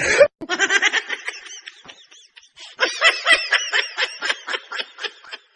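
Rapid, high-pitched laughter in quick pulses, in two stretches: one from the start that fades out by about two seconds in, and a second from about three seconds in that tails off before the end.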